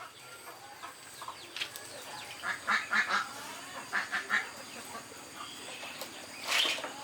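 Farm waterfowl calling in short bursts, a run of calls about two and a half seconds in and another about four seconds in.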